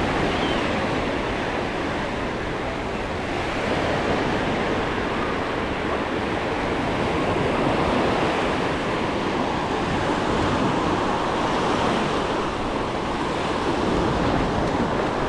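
Small sea waves washing onto a sandy beach: a steady rushing noise that swells and eases every few seconds.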